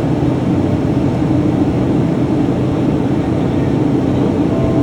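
Piper Cheyenne's twin turboprop engines running steadily in flight, a loud constant drone heard inside the cabin. A short steady tone sounds near the end.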